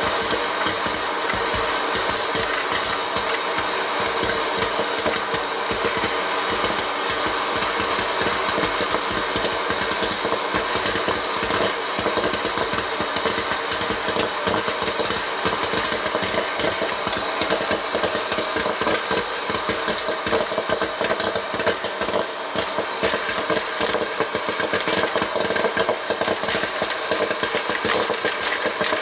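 Vintage Wear-Ever Popcorn Pumper electric hot air popper running: a steady blower whir with a quick, irregular crackle of kernels popping.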